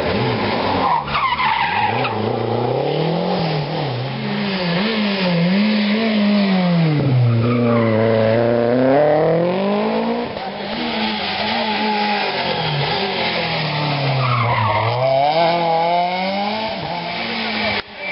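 Rally car engines at hard throttle, their pitch dropping and climbing again and again as the cars brake, change gear and accelerate through a tight bend, with tyre noise from the tarmac.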